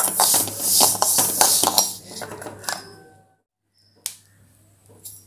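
Perforated metal skimmer stirring black sesame seeds as they dry-roast in a metal pan: the seeds rattle and the skimmer scrapes across the pan, dying away after about two seconds. After a short silence come one sharp click and a few faint clicks.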